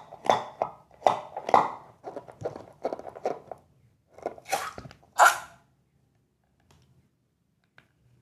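Slime being squished and squeezed by hand, a run of wet crackling and popping squelches that stops after about five seconds.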